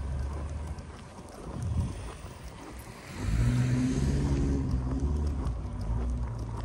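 A motor vehicle's engine running close by, a low steady hum that grows much louder about halfway through and holds to the end.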